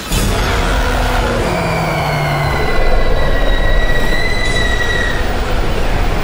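Loud television static hiss with a low rumble beneath it, part of a horror promo's sound design. A thin whistling tone rises out of the hiss about a second and a half in and slides slowly downward until about five seconds in.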